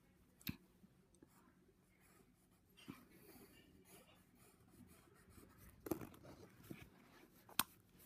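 Near silence, with faint pencil-on-paper sounds and a few light ticks, the sharpest near the end.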